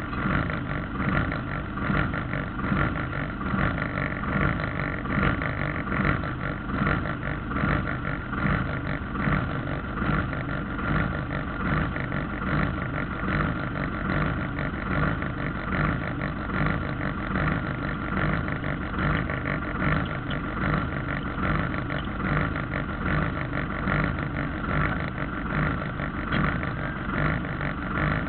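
Valmet 702 tractor's diesel engine running steadily, unloaded, heard from inside the cab, with an even pulsing beat.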